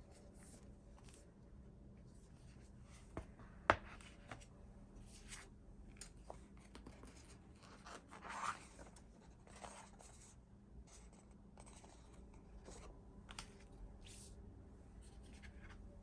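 Quiet handling of K-pop album packaging: scattered light scratches, rustles and taps, with a sharp click about four seconds in and a longer rustle, like plastic or paper being torn or slid, just after eight seconds.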